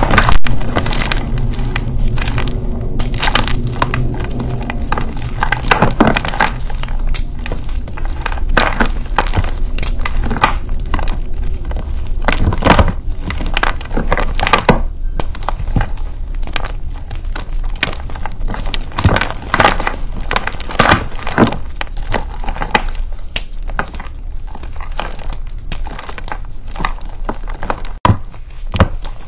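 Hands crushing and crumbling blocks of reformed gym chalk: a dense, irregular run of crunches and crackles as chunks break apart and fall.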